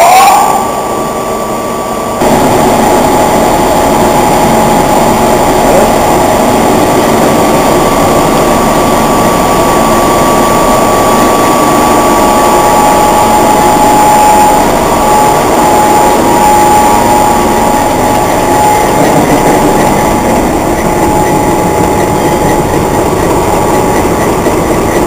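Andritz Sprout Matador FEX-34 feed expander running: a loud, steady mechanical noise with a couple of steady whining tones, jumping louder about two seconds in.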